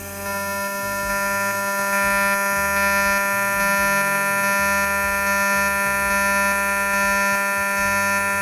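TIG welding arc on titanium pipe, buzzing steadily with a steady hum-like tone. It strikes right at the start and grows louder over the first couple of seconds.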